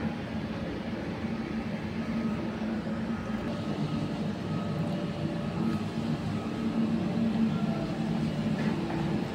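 Steady low mechanical drone of machinery running, with a faint higher whine over it.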